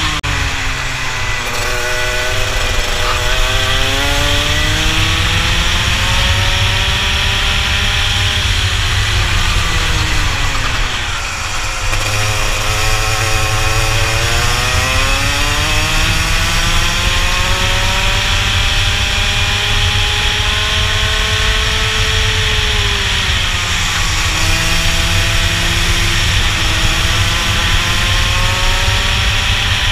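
Racing kart engine heard onboard at speed, its pitch climbing steadily along the straights and dropping steeply as the driver lifts for corners, about a third of the way in and again about three-quarters through, over a constant low rumble of wind and tyres.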